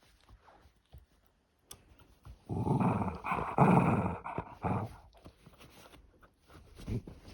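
Dog growling for about two seconds, starting a couple of seconds in: a warning growl from a dog guarding his treat.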